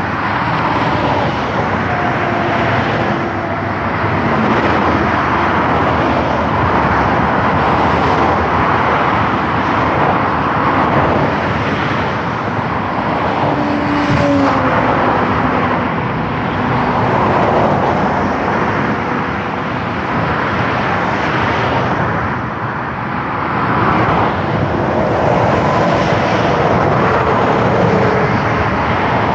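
Dense autobahn traffic of cars and lorries passing at speed: a steady rush of tyre and engine noise that swells and fades as each vehicle goes by, with a brief falling pitch from one passing vehicle about halfway through.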